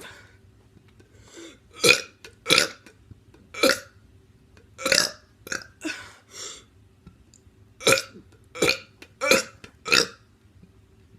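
A teenager burping: about a dozen short burps in a row, with brief pauses between them.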